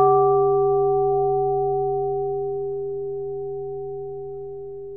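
A single struck bell ringing out and slowly fading, a clear tone over a low hum.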